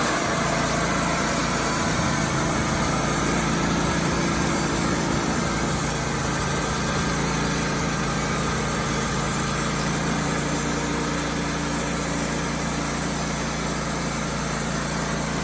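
Wood-Mizer LT35HD sawmill's engine running steadily at a constant speed.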